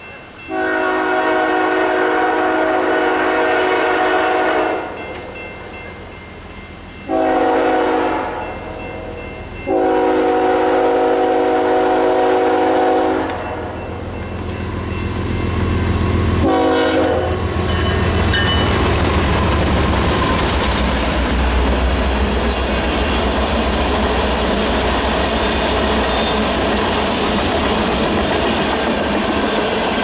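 Nathan K5HL five-chime air horn on a BNSF ES44DC diesel locomotive blowing a long blast, a short one and another long one, the end of the standard long-long-short-long grade-crossing warning, then a brief toot. The locomotives then pass with a low engine rumble, followed by loaded tank cars rolling by with a steady clickety-clack of wheels on the rail joints.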